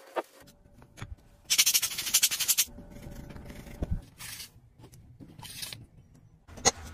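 A toothbrush scrubbing a wet, soapy steel watch case. There is a loud, fast stretch of scrubbing about a second and a half in, lasting about a second, then two shorter bursts of brushing, with a few small clicks of the tool against the case.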